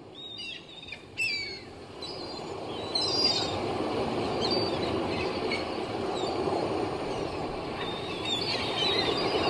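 Seaside soundscape of gulls crying over a steady wash of surf. The surf swells in over the first few seconds, and short gull cries come through it now and then.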